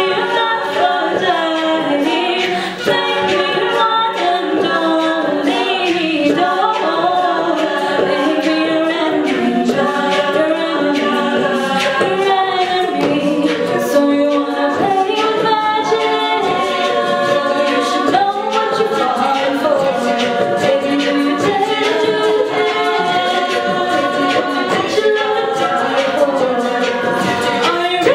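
All-female a cappella group singing: a lead voice over layered backing voices in harmony, with sharp percussive hits throughout.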